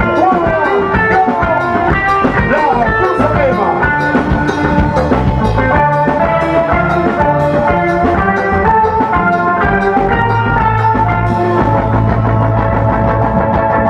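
Live sega band music played loud through the PA: a steady drumbeat under keyboard and melodic lines, with no break.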